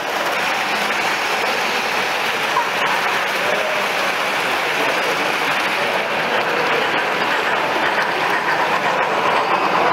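Model trains running on an exhibition layout: a steady noise of wheels rolling on the track as long rakes of wagons and coaches pass close by.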